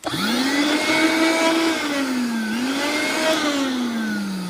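Hoover Dustette handheld vacuum cleaner motor starting abruptly, set off by its very sensitive switch. Its whine rises quickly, dips and recovers about halfway through, then falls steadily as the motor winds down near the end.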